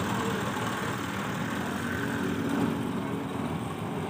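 Belt-driven thresher running at speed off a tractor, a steady mechanical drone of the spinning drum and pulleys with the tractor engine working under load beneath it.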